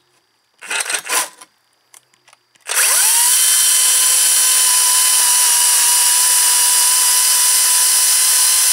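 A few knocks about a second in, then a Makita DUC400 36 V (18 V x 2) brushless cordless chainsaw spins up with a quick rising whine and runs at a steady high whine. Its chain is cutting through a pressure-treated 4x4 post under load, drawing about 15 to 23 amps.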